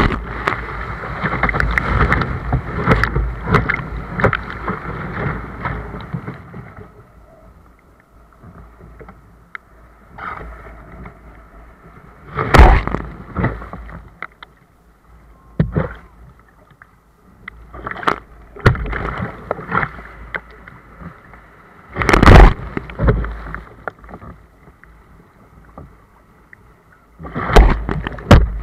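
Surf breaking over a sea kayak's bow and deck-mounted camera: a long rush of water for the first several seconds, then quieter stretches broken by sudden splashes as waves hit, the last one near the end.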